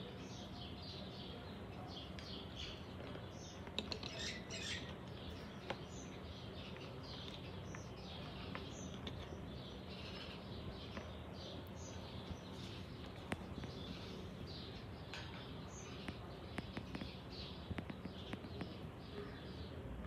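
Parrot's beak biting and clicking on a plastic bottle cap, with a few sharp taps, over frequent small bird chirps.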